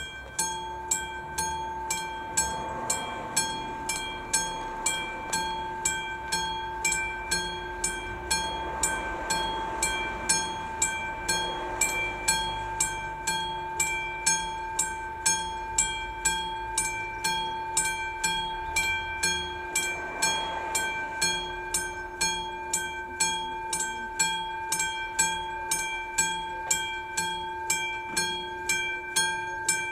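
Classic mechanical bell of an AŽD 97 level-crossing warning signal, ringing with evenly spaced hammer strikes a little under two a second. Each stroke's clear tone rings on into the next. It starts at the very beginning, as the crossing's warning is triggered for an approaching train.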